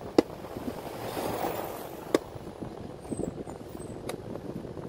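Plastic motorcycle gauge housing and its clear lens being handled and pressed together by hand: light rubbing and rustling with three sharp plastic clicks, the loudest just after the start, others about two and four seconds in.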